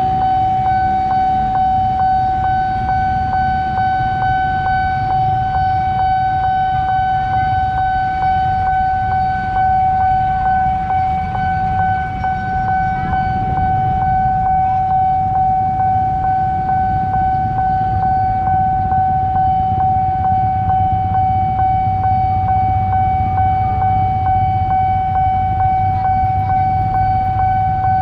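Railway level-crossing warning alarm sounding one steady, unbroken high tone, warning that a train is coming, over the low rumble of motorbikes and cars idling at the closed barrier.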